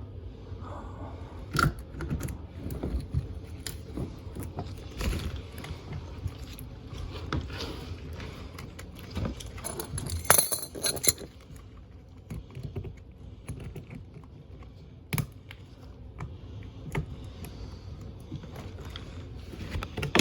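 Scattered clicks, knocks and clatter of tools and parts being handled, with a brief metallic jangle about ten seconds in.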